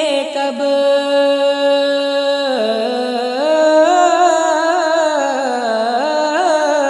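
A solo voice singing a naat, holding one long steady note for about two and a half seconds, then moving into a wavering, gliding melodic run on the same vowel.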